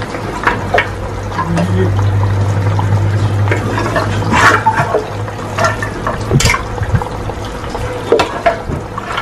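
Chunks of boiled beef dropped by hand into a wok of simmering broth, making repeated wet splashes and plops over a steady low hum.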